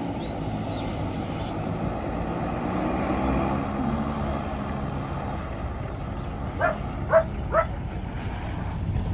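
Small harbour water taxi's engine running steadily as the boat motors in toward the dock, growing a little louder as it nears. About two-thirds of the way through, a dog gives three short barks in quick succession.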